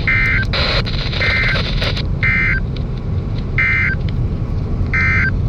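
Emergency Alert System end-of-message data bursts from NOAA Weather Radio: five short, harsh two-tone digital squawks about a second apart, the EOM code that marks the end of the alert. They sit over steady radio hiss and hum.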